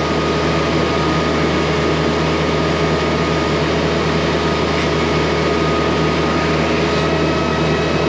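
An engine running steadily at constant speed: a continuous drone with a thin steady whine above it.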